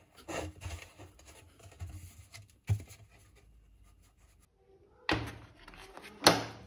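Hard plastic parts of a cyclone dust separator being handled: light knocks and rubbing, with a short knock a few seconds in. A single sharp clack near the end is the loudest sound.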